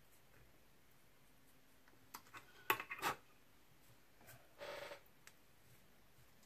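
A few faint clicks and taps about two to three seconds in, then a brief rustle about a second and a half later, from hands handling a fly-tying vise and tools. Otherwise quiet room tone.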